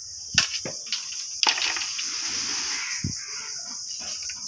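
A chopper blade working bamboo strips against a wooden plank: a few sharp knocks, then a rasp of about a second and a half, and a dull thump about three seconds in.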